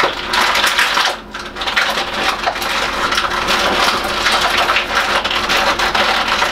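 Plastic action-figure packaging crackling and rustling in quick dense clicks as it is handled and parts are pulled out, with a short lull about a second in.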